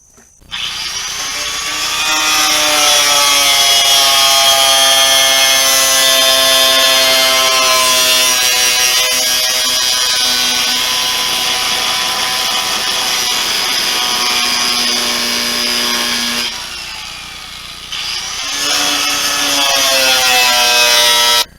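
Handheld electric power tool working sheet metal: its motor whine climbs as it spins up, runs steadily under load, eases off about three-quarters of the way through, picks up again and cuts off suddenly.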